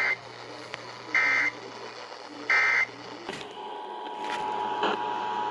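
Emergency Alert System end-of-message data bursts: three short, loud, warbling digital tones about a second and a third apart, the EOM code that closes the test message. About three and a half seconds in, the steady two-tone EAS attention signal begins.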